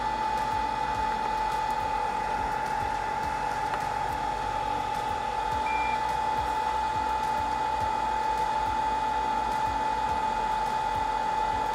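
Steady whir of an electric blower fan with a constant whine, unbroken throughout. A brief high beep sounds about six seconds in.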